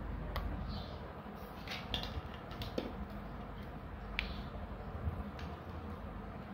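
Steel spoon clicking and scraping as thick crab gravy is served onto a banana leaf, a few scattered light taps over a low steady hum.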